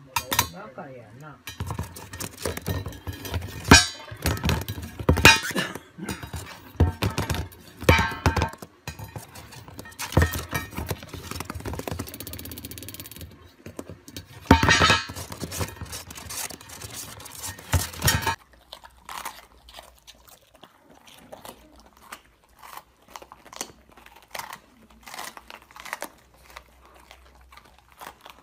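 A lovebird knocking and flipping a round dish on a cardboard floor with its beak: repeated clattering knocks and rattles. After about 18 seconds this gives way to quieter crunching as two dogs chew raw green bell peppers.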